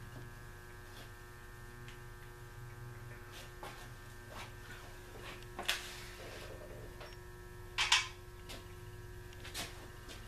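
A steady electrical hum, with light metal clicks and two sharper metal clanks about six and eight seconds in as parts are handled on a stripped-down 1956 Packard engine on its stand.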